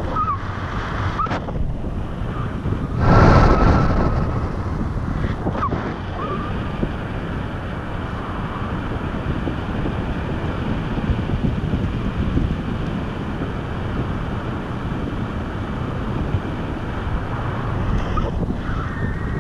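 Wind from paraglider flight buffeting the camera microphone: a steady rushing noise, with a stronger gust about three seconds in.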